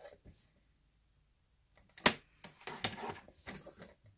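Paper trimmer's scoring blade on cardstock: a sharp click about two seconds in, then a scratchy sliding noise for about two seconds as the blade is drawn along the rail.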